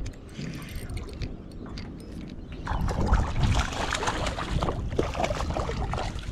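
Water splashing, getting louder and busier from about three seconds in: a hooked tailor thrashing at the surface as it is drawn to the boat.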